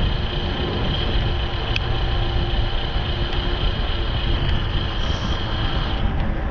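Wind buffeting the microphone while riding an e-bike, a dense low rumble, with a thin steady high electric-motor whine above it that stops about six seconds in.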